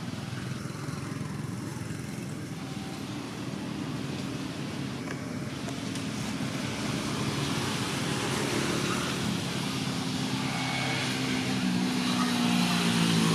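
Engine of a motor vehicle running and growing steadily louder through the second half as it draws near, over steady outdoor background noise.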